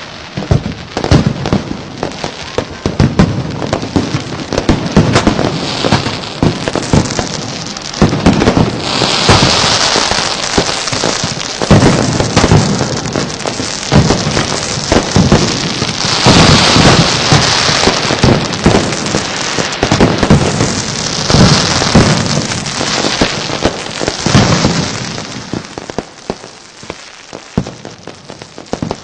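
Aerial fireworks going off in quick succession, a dense run of bangs and crackling. Swells of hissing crackle come about a third of the way in, about halfway and about three-quarters through, and the bangs thin out near the end.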